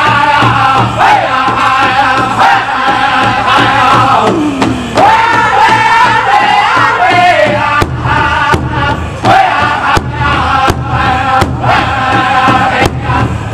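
Powwow drum group singing a chicken dance song in unison, with several men beating one large hide powwow drum in a steady beat. One long falling vocal slide comes about four seconds in, and the drumbeat grows heavier in the second half.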